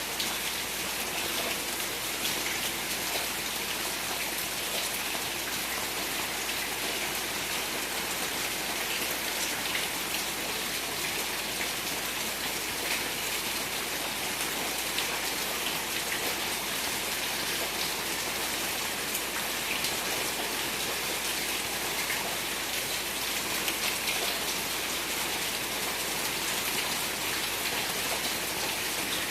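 Steady rain falling, a dense even hiss with many small drop patters.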